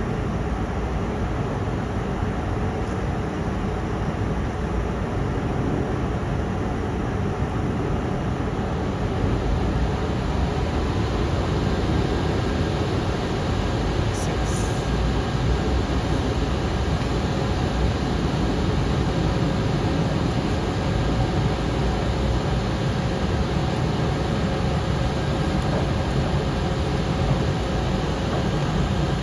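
Drone dock's air conditioner running in cooling mode, blowing cold air onto the drone battery: a steady fan-and-machine noise with a faint constant hum.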